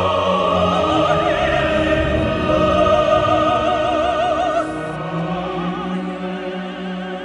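A mezzo-soprano sings long, high held notes with wide vibrato over an orchestra. Near two-thirds of the way through her voice stops and a quieter, lower sustained chord carries on, slowly fading.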